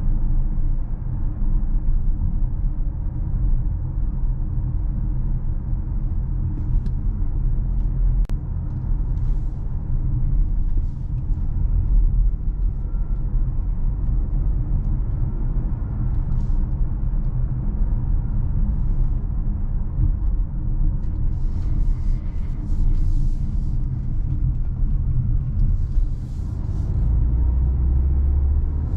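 A 2021 Mercedes GLA with a 1.3-litre 163 hp engine on the move: a steady low rumble of engine and road noise. A deeper steady drone joins near the end.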